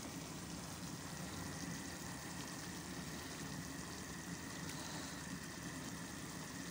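Steady low hum and hiss of a stovetop cooking scene: a pot of tomato stew simmering over a gas burner, with a faint steady high whine.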